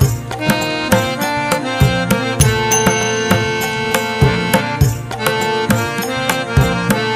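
Instrumental background music: sustained melodic tones over drum strokes about once a second.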